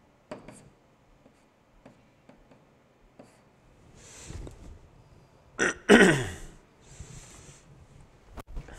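A few faint taps of a pen writing in the first second, then a short throat-clearing sound about six seconds in, falling in pitch.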